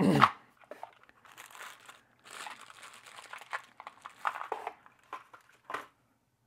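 Clear plastic bag crinkling in a series of irregular rustles as a hand rummages in it for a rifle bullet, stopping near the end.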